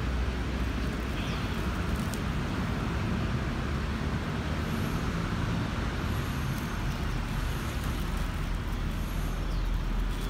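Steady low rumble of road traffic from passing cars.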